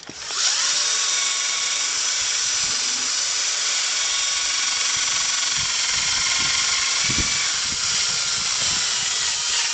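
Electric drill spinning a polishing pad against a headlight lens, buffing it with polishing compound in the polishing step of a headlight restoration. A steady high whine that starts just after the beginning and stops abruptly at the end.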